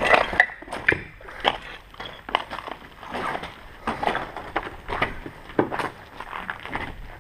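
A string of short knocks and scuffs, roughly two a second, as of someone moving about and rummaging through things.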